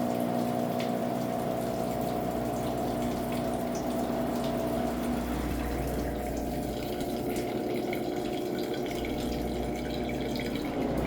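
Drain pump of a Brastemp Ative 11 kg washing machine running, pumping out water during the intermediate spin. Its steady hum turns rougher and lower about five seconds in, and the sound stops near the end.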